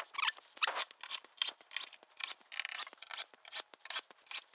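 Screwdriver turning out screws from a Casio CZ-1 synthesizer's metal case: quick, faint scraping ticks, about four a second.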